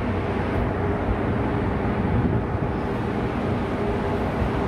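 Ship's machinery running steadily: a constant low hum with several steady tones over an even rushing noise.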